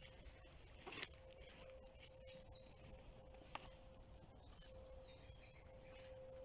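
Near silence: faint rustling and a few soft clicks, one sharper click about halfway through, over a faint steady hum.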